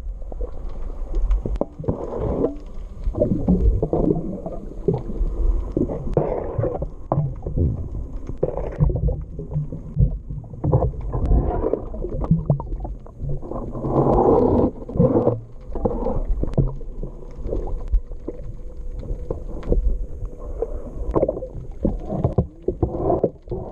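Water sloshing and gurgling around a small boat's hull, with irregular knocks.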